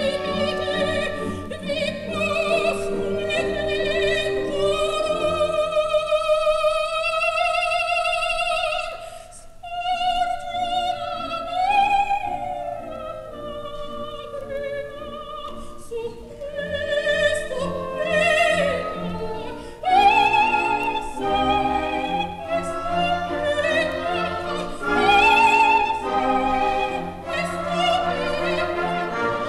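Operatic soprano singing a slow, lyrical line with a wide vibrato over a sustained orchestral accompaniment, with a brief softer dip about nine seconds in; a live recording transferred from a vinyl LP.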